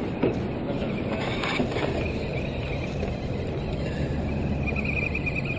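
Electric motors and gearboxes of radio-controlled rock crawler trucks whining as they climb a rocky dirt bank, with a steady hum and a few short scrapes and knocks of the trucks on dirt and stone.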